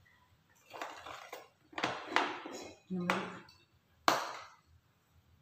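Spoons and dishes clinking and scraping as food is served at the table, a few short clatters, with one sharp glass-on-table knock about four seconds in.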